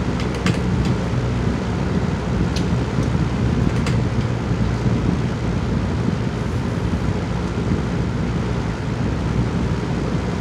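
Steady low background rumble throughout, with a few light clicks near the start and a couple more a few seconds in: a plastic straw knocking against ice and the drink bottle as it is stirred.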